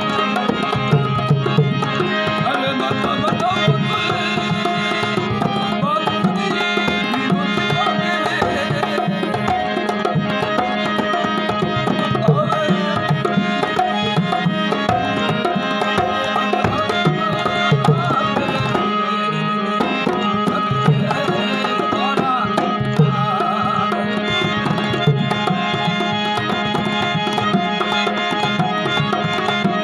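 Instrumental passage of a Rajasthani folk song: hand drums keep up a busy, steady rhythm under sustained melodic tones.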